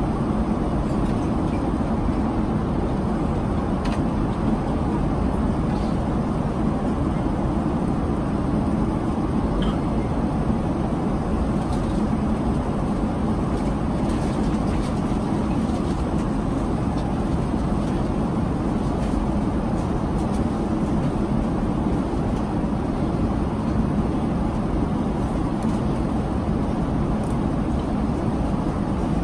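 Steady cabin noise of a Boeing 787-9 Dreamliner in flight: an even, low rushing sound, with a few faint ticks.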